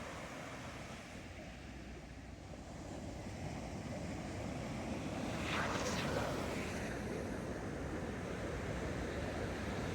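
Ocean surf on a beach: a steady wash of waves that builds through the middle, with a wave breaking about six seconds in.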